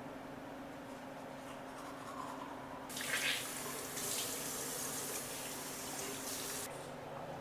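Water running from a tap, turned on about three seconds in and shut off nearly four seconds later, over a steady low hum.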